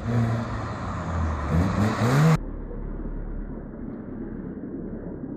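Drift car's engine revving hard, its pitch rising just before two and a half seconds in, over a wide hiss of noise; then the sound cuts off abruptly to a duller, quieter engine rumble.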